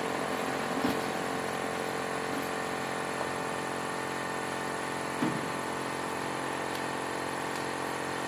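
A steady mechanical hum made of many fixed tones, with a brief louder sound about five seconds in.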